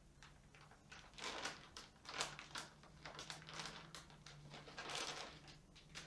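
Packaging rustling, with soft knocks, as it is handled on a tabletop: a string of irregular rustles starting about a second in and dying away near the end.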